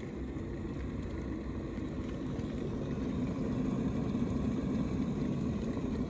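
Stainless electric kettle heating water close to the boil: a steady noise that grows a little louder partway through.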